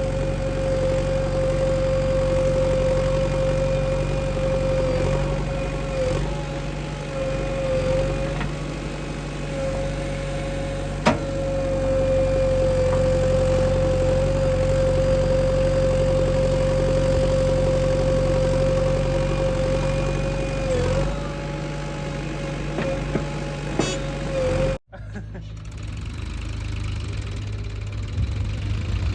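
Diesel engine of a JCB 3DX backhoe loader running steadily, with a constant high whine over the engine drone and a sharp click about a third of the way through. Near the end the sound cuts off abruptly and gives way to a lower engine idling.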